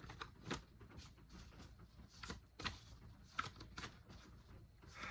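A deck of oracle cards being handled and shuffled by hand: faint, scattered soft flicks and taps of card stock, several times over.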